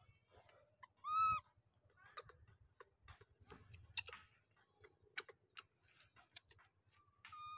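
A baby monkey gives a short, high, pitched coo call about a second in and a second, falling one near the end, with scattered light clicks and rustles between them.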